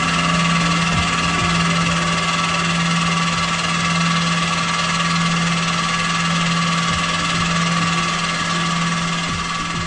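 Tormach CNC mill running a carbide-tipped fly cutter across 6061 aluminum: a steady low machine hum with a higher whine over it, easing slightly near the end.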